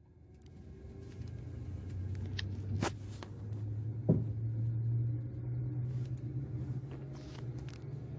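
Turboprop airliner's engine and propeller running, heard from inside the cabin as a steady low drone that grows louder over the first two seconds and rises slightly in pitch about halfway through. Two sharp clicks about three and four seconds in.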